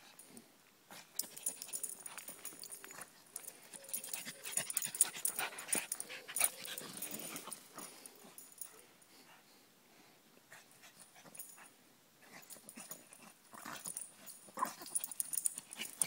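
Pug mix dog breathing hard and making small vocal sounds as it dashes about on a dirt forest path, with irregular scuffs and footfalls; quieter for a few seconds in the middle.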